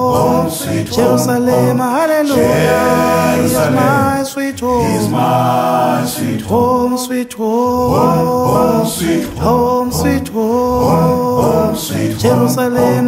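A cappella choir singing: several voices together, unaccompanied, in long held notes.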